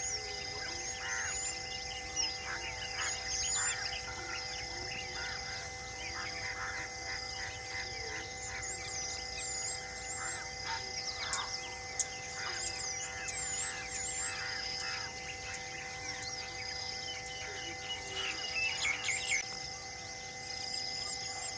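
Wild birds chirping and calling, many short rising and falling calls, over a steady hum.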